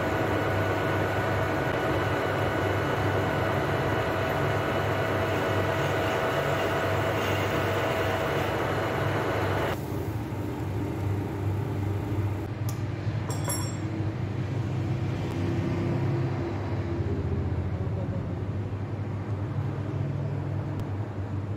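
Metal lathe running, its cutting tool turning a metal part with a steady whine and several ringing tones. About halfway through the cutting noise stops abruptly, leaving a low hum, and a few metal clinks come shortly after as the part is handled at the chuck.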